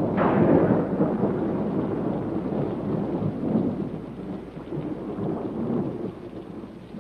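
Thunder: a sharp crack just after the start, rolling into a long low rumble that slowly dies away, over the hiss of rain.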